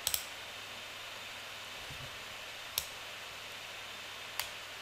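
Steady background hiss with three short computer mouse clicks: one right at the start, one near the middle and one near the end.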